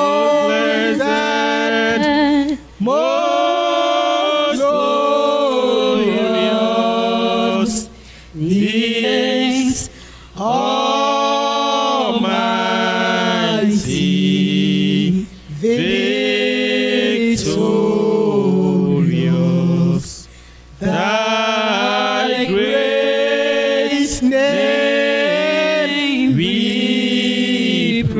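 A woman singing a slow hymn unaccompanied into a microphone, in long held phrases with short pauses for breath between them.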